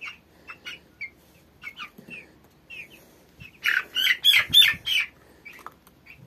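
13-day-old broiler chicks peeping: scattered short peeps, with a run of louder peeps about four seconds in.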